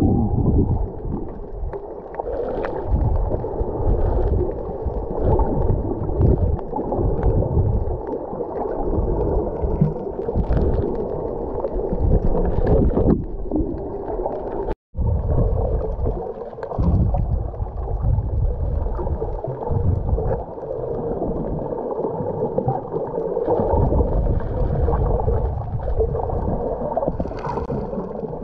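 Muffled underwater ambience picked up by a camera held underwater: a continuous low rushing and surging of water, with the sound cutting out for an instant about halfway through.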